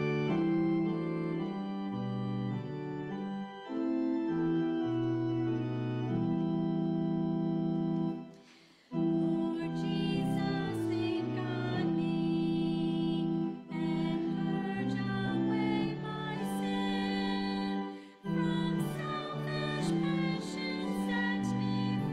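Church organ playing a hymn in held chords, with a brief break about eight seconds in. From about ten seconds the congregation sings the hymn along with it.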